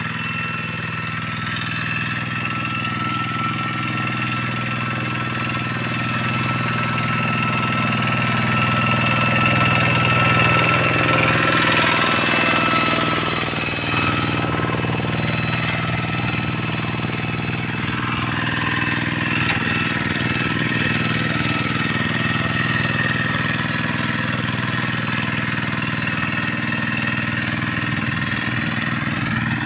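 Hand tractor's diesel engine running steadily while pulling a plough through dry paddy soil. It grows louder for several seconds near the middle, dips briefly about halfway through, then runs on evenly.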